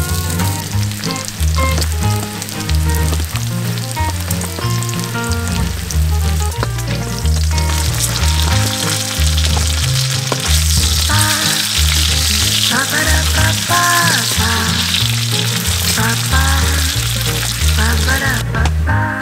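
Pork belly sizzling on a griddle, the sizzle growing louder about eight seconds in and stopping shortly before the end, over background music with a stepping bass line and melody.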